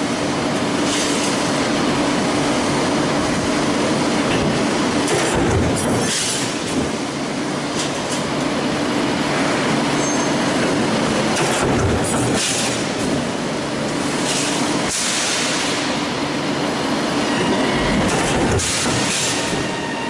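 Sheet-metal stamping press running with a large stamping die: a loud, steady mechanical din with a low hum, and a hiss that surges every two to three seconds.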